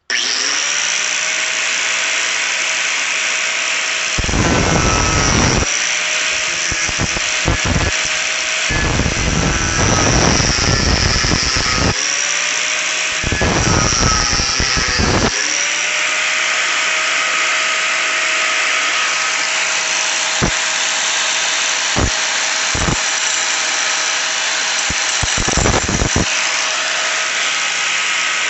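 Homemade drill press driven by a treadmill motor, running up to speed with a steady whine. Three longer stretches of harsh, rough noise break in, and the whine climbs back up after each. Several sharp clicks follow later.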